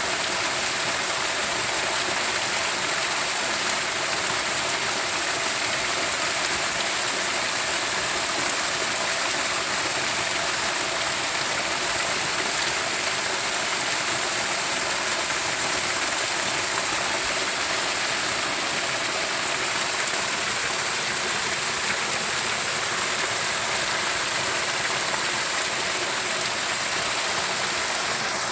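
Steady rushing of flowing stream water, unbroken and even.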